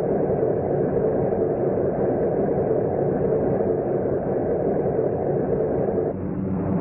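Steady drone of piston aircraft engines running up on a carrier flight deck. About six seconds in the engine noise falls away and music comes in.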